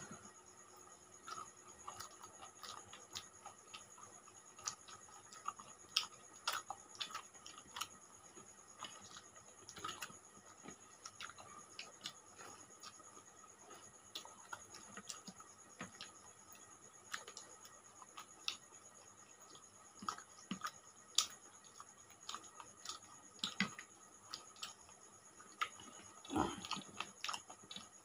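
Quiet, close eating sounds of people eating rice and fish curry with their hands: irregular small clicks and smacks of fingers working food on the plates and of chewing. One louder sound about 26 seconds in.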